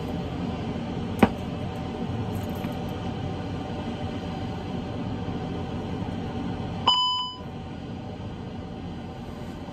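Steady background noise of an Airbus A380 flight deck with a sharp click about a second in, then about seven seconds in a single short electronic chime, at which moment the background noise briefly drops away and comes back quieter.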